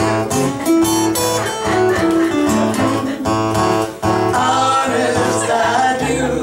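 Acoustic guitar playing a blues tune: picked single notes over a steady, repeating bass line.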